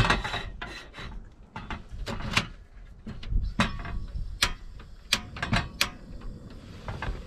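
A stainless saucepan of water set down on a portable gas camping stove with a sharp clank, followed by handling knocks. From about three and a half to six seconds in, the stove's knob is turned and its igniter clicks sharply several times.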